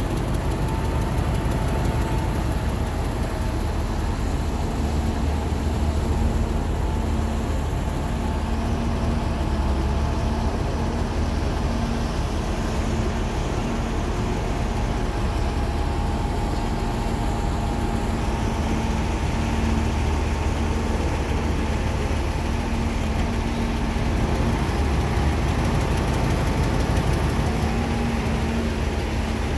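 Steady low hum of heavy diesel engines: a Hino dump truck idling and a Doosan DX140W wheeled excavator working as it loads soil into the truck.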